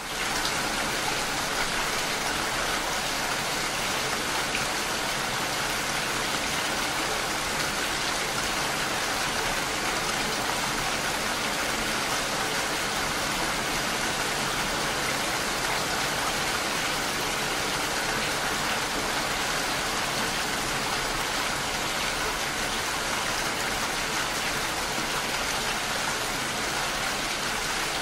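Steady rain, an even hiss that fades in from silence right at the start and then holds level.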